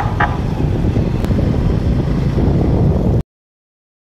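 Wind buffeting the microphone of a moving motorcycle, over steady engine and road noise, with a brief horn toot right at the start. The sound cuts off suddenly about three seconds in.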